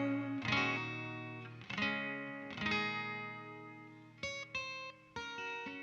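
Electric guitar with effects, three chords struck about a second apart and left to ring out and fade, then short, clipped picked notes from about four seconds in.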